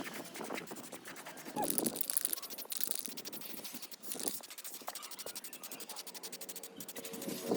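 Rapid scratching and scraping against a hard surface, a fast rough rhythm that comes and goes, as of a part being scrubbed or scraped by hand.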